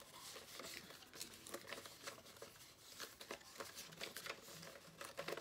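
Paper prop-money bills rustling and flicking faintly as they are counted out by hand, a scatter of short crisp ticks.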